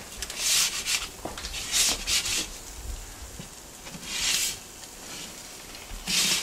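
A spatula scraping and tossing squash fries across a perforated nonstick pizza pan, in several short scrapes a second or two apart.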